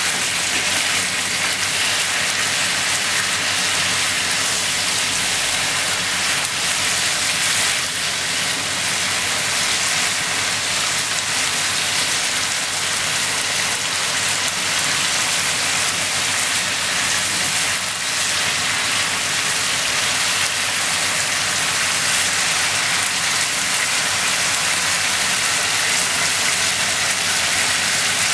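Pork, cabbage and bean sprouts sizzling steadily in a bubbling sauce in a hot frying pan, stirred now and then with a wooden spatula.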